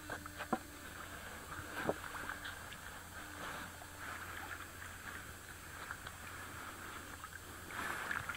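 Low, steady water and wind noise, with a few sharp knocks in the first two seconds and another bump near the end.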